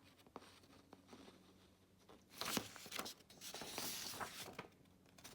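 Sheets of printer paper being handled and rustled, with a few soft ticks at first. The rustling is loudest from about two seconds in.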